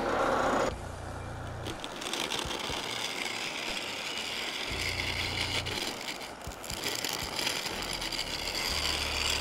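A VEVOR benchtop wood lathe running while a replaceable-blade turning chisel cuts into a square 4x4 blank, making a steady, hissing cutting noise over the low hum of the motor. It is louder for about the first second.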